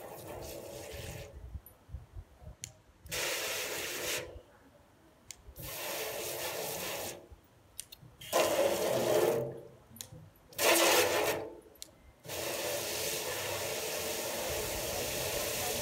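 Garden hose trigger spray nozzle spraying water into a wheelbarrow to rinse it, switched on and off about six times, each spell of hiss starting and stopping sharply. The spells past the middle are the loudest, and the last one runs longest, about three and a half seconds.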